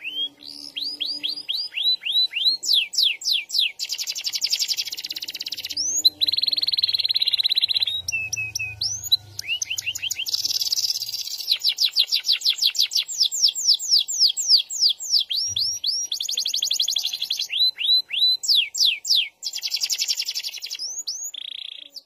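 Domestic canary singing a long unbroken song: runs of quick down-slurred whistled notes alternating with long, fast, buzzy rolls.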